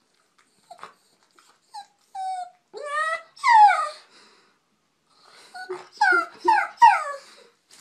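Wet dog in a bathtub whining and yowling in protest at its bath: a few short high whimpers, then two long downward-sliding cries, then a quick run of about four more falling cries near the end.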